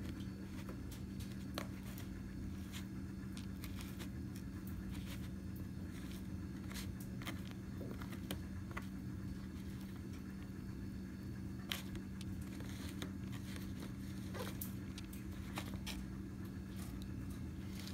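A steady low hum, with faint scattered clicks and rustles from hands moving over a plastic tub of substrate.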